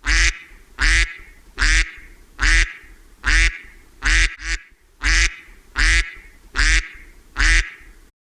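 An animal calling over and over: about ten short, loud calls, a little under a second apart, with two coming close together around four seconds in.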